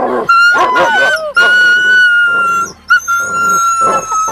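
Rajapalayam dog howling. A short wavering whine comes first, then two long, level, high-pitched howls, each over a second, with a brief break between them.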